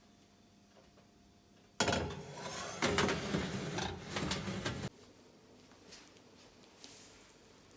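A loud burst of clattering and rattling handling noise, like things being moved about in a kitchen, lasting about three seconds and starting and stopping abruptly.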